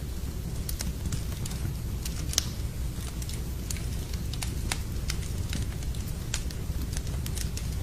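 Wood fire burning in a fireplace: a steady low rumble of flames with irregular sharp crackles and pops, one louder pop about two and a half seconds in.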